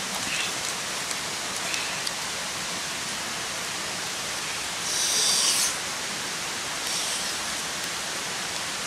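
Steady, even hiss of forest background noise, with a brief louder rasping burst about five seconds in and a fainter one near seven seconds.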